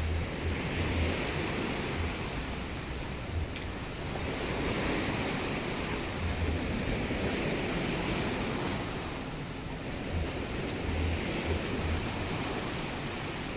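Ocean surf and steady rain together: an even rushing hiss that swells and eases every few seconds as waves wash in, with short low rumbles now and then.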